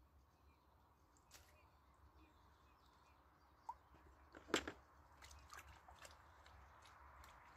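Near silence with a few faint clicks, broken just past halfway by one sharp knock as a plastic bucket is set down on wooden logs.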